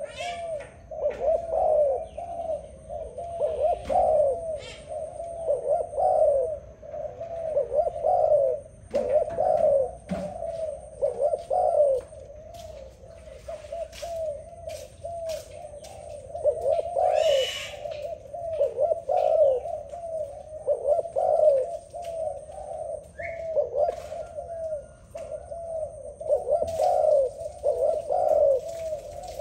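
Spotted dove cooing: a steady series of repeated low coo phrases that grow softer for a few seconds near the middle.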